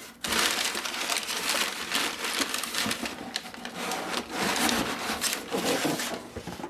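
Crumpled brown kraft packing paper crackling and rustling as hands dig through it in a cardboard shipping box and pull a boxed item free. It starts abruptly just after the beginning as a dense run of crinkles.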